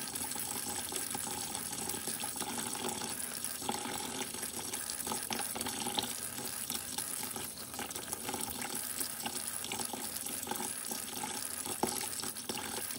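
Tap water running steadily into a stainless-steel kitchen sink as fish are rinsed under it, with a few light knocks from handling.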